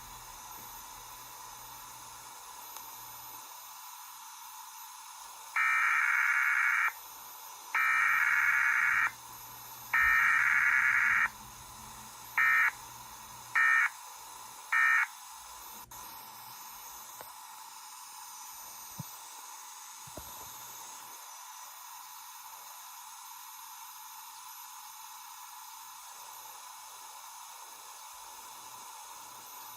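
Emergency Alert System weekly test: three SAME header data bursts, each about a second long, a second apart, then three short end-of-message bursts, over steady static hiss.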